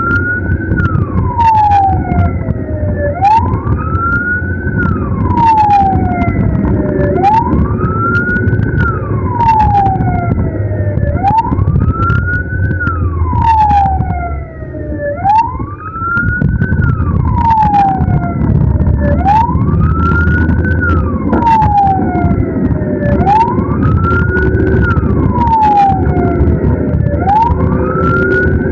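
Ambulance siren wailing, each cycle a quick rise and a slow fall in pitch, repeating about every four seconds, over engine and road rumble.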